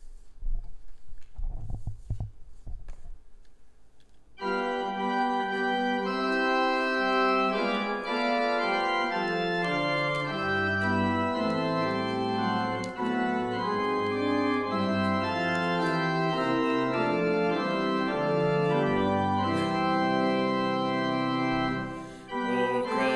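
A few dull low thumps, then, about four seconds in, an organ starts playing a hymn introduction in sustained chords that ends near the close.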